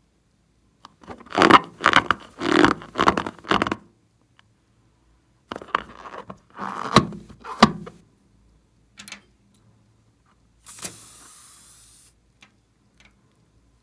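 Hands working rubber balloons and slime: two runs of irregular rubbing, scraping and squishing, then a short hiss a little over a second long near the end.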